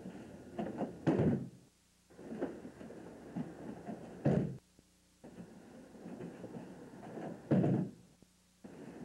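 Aikido partner taking breakfalls on padded dojo mats as he is thrown: three heavy thumps about three seconds apart, at about one, four and seven and a half seconds in, with softer shuffling noise between them.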